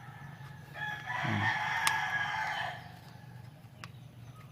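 A rooster crowing once: a single call of about two seconds, starting about a second in, over a steady low hum.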